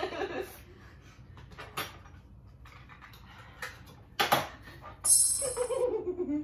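Scattered light taps and knocks of playing cards and cups handled on a wooden table, with a sharper knock about four seconds in.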